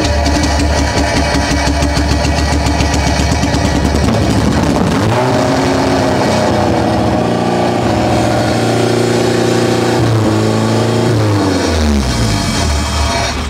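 Smart car engine running, then revving up about four seconds in, holding at higher revs for several seconds and dropping back near the end. The revving goes with the throttle position sensor plugged in, a sensor that is giving trouble.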